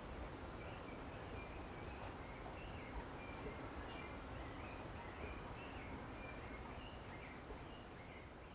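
Faint outdoor ambience: a steady low rumble with small birds chirping in short, irregular high notes. The sound fades out near the end.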